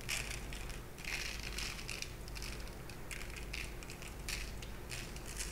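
Sesame seeds being sprinkled by hand over raw bread rolls, a soft, irregular rustling and crackling of small grains.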